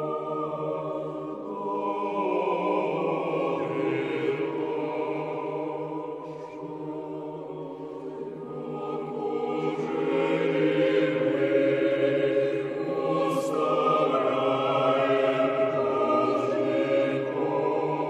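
Background choral music: voices hold slow, sustained chords that change every few seconds, swelling louder about halfway through.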